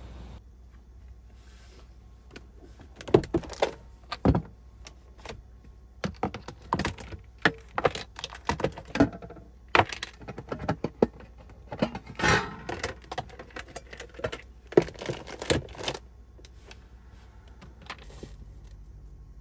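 Plastic clicks and clacks with light metal clinks as a Wallfire electric lunch-box cooker is opened: the latched plastic lid is unclipped and set down and the stainless steel inner tin is lifted and put back. The knocks come in quick irregular runs, starting a few seconds in and dying away a few seconds before the end.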